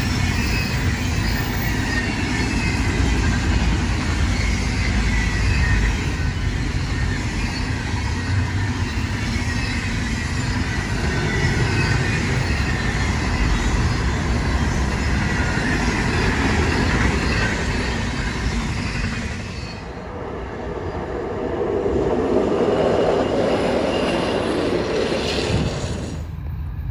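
Freight train cars passing at speed: a steady rumble and rattle of wheels on rail, with a faint high wheel squeal. The sound changes abruptly about twenty seconds in, then swells again, and changes abruptly once more just before the end.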